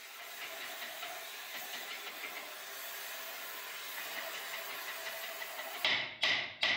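Gas torch flame hissing steadily while heating a seized bolt on a tank's engine to free it. Near the end, a quick run of sharp, ringing metal strikes starts, about two or three a second.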